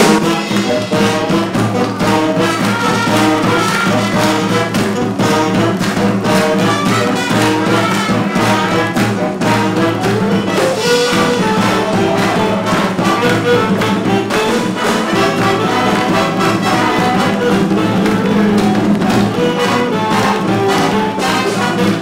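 Orchestral background music led by brass instruments, playing continuously at a steady level.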